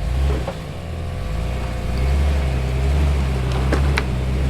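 Off-road Jeep engine running with a steady low drone while rock crawling. It gets louder about two seconds in, and two sharp knocks sound near the end.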